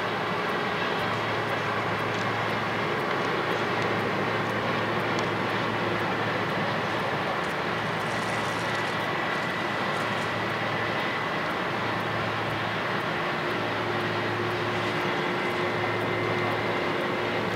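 Jet airliner engines at low taxi power: a steady rushing hum with a faint high whine held throughout.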